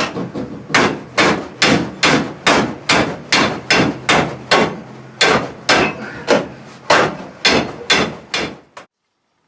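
A big hammer pounding repeatedly on a tool fitted to a car's torsion bar to drive the bar out. It lands a steady run of about twenty blows, a little over two a second, and stops abruptly near the end.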